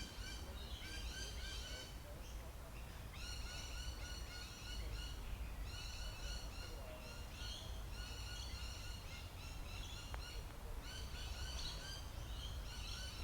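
Laughing kookaburras calling: runs of rapid, repeated cackling notes, one run after another, over a low steady rumble.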